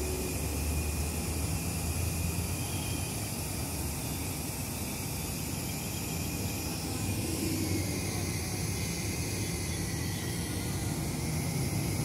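Liebherr mobile crane's diesel engine running steadily under load while it hoists a precast concrete bridge girder, with a faint high whine over the engine.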